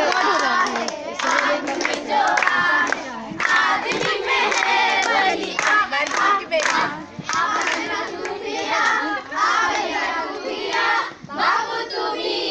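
A group of girls singing together while clapping their hands along as they dance in a circle.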